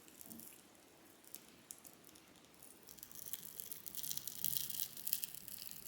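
Faint scratching and crackling of small parts being worked loose by hand inside an opened alarm unit: a few scattered small clicks at first, then denser scratching from about halfway through.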